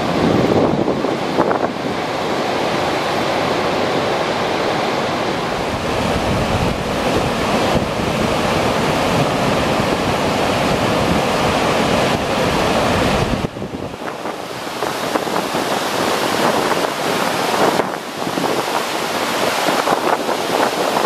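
Dam spillway discharge: a large volume of released water pouring down the spillway faces and crashing into the churning river below, a loud, steady rushing roar. The sound changes abruptly about 13 s in and again near 18 s as the view moves to other dams.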